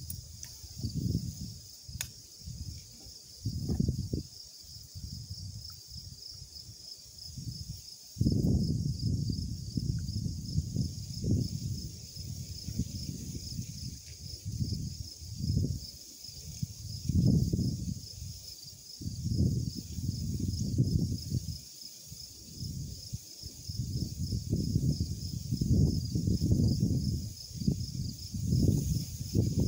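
Wind buffeting the microphone in gusts, a low rumble that swells and drops every second or two, over a steady, high, rapidly pulsing insect trill.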